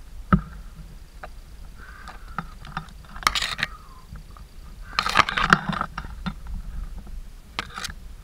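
Footsteps scuffing on a stony mountain path, with grass and leaves brushing and scraping against the camera in uneven bursts. A sharp knock comes just after the start.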